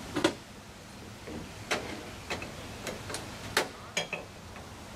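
Sharp metal clinks and taps from hand tools and air-line fittings being handled on a semi truck's diamond-plate deck: about eight at uneven intervals, the first about a quarter-second in being among the loudest.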